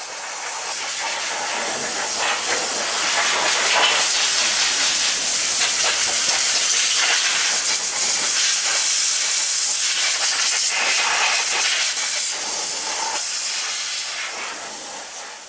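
Hand-held spray gun on a hose hissing steadily as it is played over a truck engine being cleaned. It swells in over the first couple of seconds and tails off near the end.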